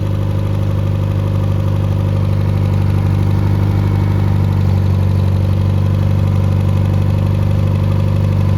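Freshly rebuilt Triumph Spitfire 1500 inline four-cylinder engine running steadily at an even speed.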